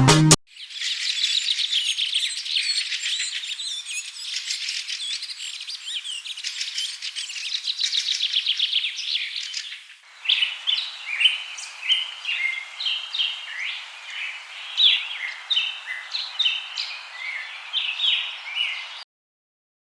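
Birds chirping and singing: a dense chatter of high chirps and trills for about ten seconds, then a cut to a different recording of clear, separate whistled notes, which stops abruptly near the end.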